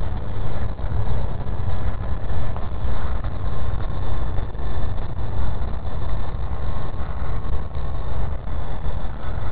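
Wind buffeting the microphone in a steady low rumble, with the faint, steady high whine of a WLtoys V913 RC helicopter's electric motor and rotor in flight.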